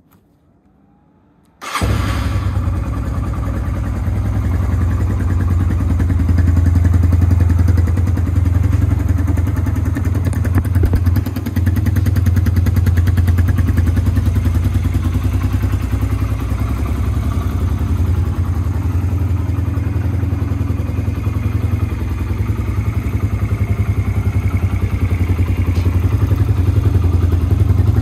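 Yamaha XTZ125E's single-cylinder four-stroke engine, breathing through an aftermarket slip-on muffler, firing up suddenly about two seconds in and then idling steadily.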